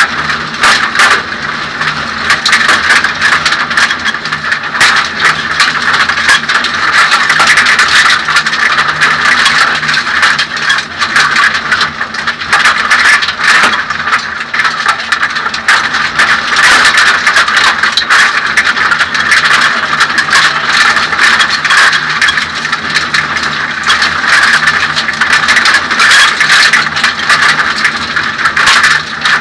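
Suzuki Swift 1600 N2 rally car's four-cylinder engine running under load at speed, heard from inside the stripped, roll-caged cabin, with constant rattling from the bodywork and fittings.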